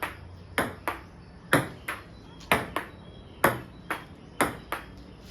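A table tennis rally: the ball clicking off the paddles and bouncing on the table, about ten sharp clicks at a steady pace of roughly two a second, often in close pairs.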